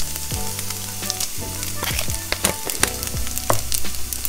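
Tofu cubes frying in hot oil in a nonstick skillet: a steady sizzle with frequent sharp pops and crackles.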